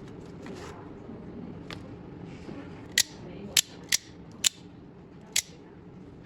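Six sharp clicks from a small metal hand tool or blade being worked, coming irregularly about half a second to a second apart.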